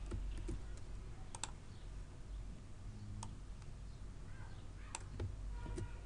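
Computer keyboard keys clicking now and then: a handful of separate presses spread out, over a low steady hum.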